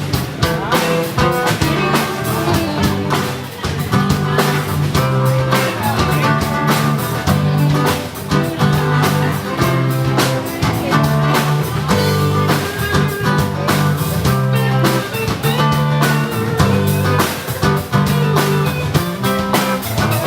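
Live rock band playing an instrumental passage between sung verses: guitar over bass notes and a steady drum beat.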